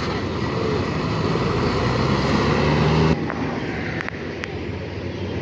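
Large vehicle engine and road noise, most likely a passing bus, growing louder and rising in pitch as it accelerates close by. About three seconds in it cuts off suddenly to a quieter steady traffic hum, with two faint clicks near the end.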